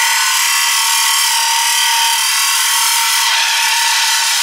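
Battery-powered saw with a metal-cutting blade cutting through the Corvette's stock exhaust, running steadily at one high-pitched note with a dense grinding hiss of blade on metal.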